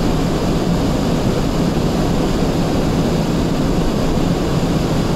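Strong wind of a snowstorm, a steady loud rumble with hiss.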